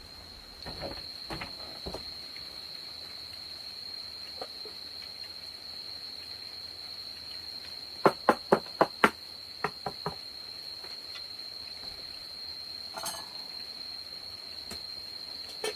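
A steady high-pitched insect drone, with a quick run of five sharp knocks about halfway through, at roughly four a second, followed by three fainter ones.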